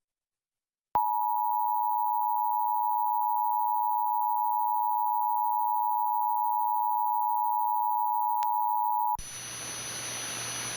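Emergency Alert System attention tone: a steady electronic tone that starts about a second in, holds for about eight seconds, then cuts off abruptly to a faint hiss.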